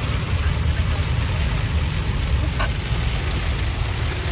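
Heavy rain drumming on a car's roof and windshield, heard from inside the cabin over a steady low rumble from the car.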